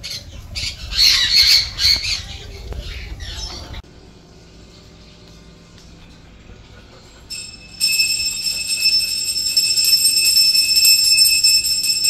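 Aviary birds squawking loudly in harsh, repeated calls for the first few seconds, then a sudden drop to a low background. About seven and a half seconds in, a steady high-pitched ringing tone with overtones and a fast flutter starts and keeps going.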